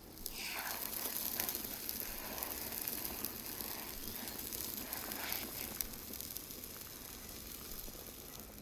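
Campfire burning with a steady hiss and occasional crackles.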